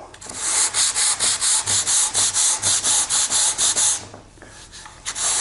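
Hand sanding block with sandpaper scrubbing back and forth over a hardened filler repair on a wood edge, feathering the filler down level with the wood. The strokes are rapid and even, about four a second; they stop about four seconds in and start again near the end.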